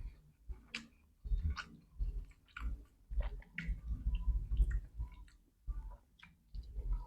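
Close-up chewing and eating mouth sounds, a person eating fried chicken and rice by hand, with irregular wet clicks and soft thumps every half second or so.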